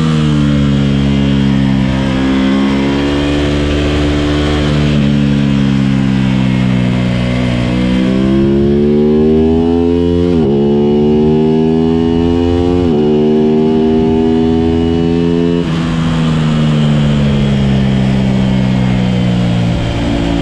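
A vehicle's engine running under load, its pitch climbing as it accelerates and dropping sharply at two upshifts about ten and thirteen seconds in, then easing down gradually as it slows.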